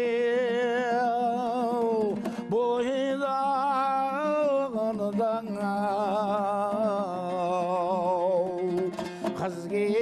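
A man singing a Kazakh folk song in long held notes with a wavering vibrato, accompanying himself on a dombra, the two-string Kazakh lute, strummed steadily underneath. The voice breaks off briefly twice between phrases.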